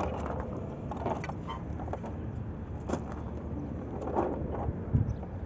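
Steady low mechanical hum with a few short knocks and clicks, the loudest about five seconds in.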